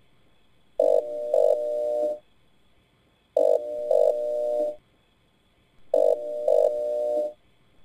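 A repeating pitched electronic buzz, three times. Each time starts with two short sharp blips half a second apart and is followed by a held buzzing tone lasting about a second, with quiet in between.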